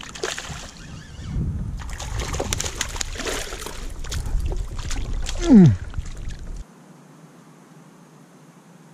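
A hooked pike thrashing and splashing at the water's surface beside the boat, in irregular bursts. A short, loud, falling vocal exclamation comes about five and a half seconds in, and the sound cuts off sharply about a second later.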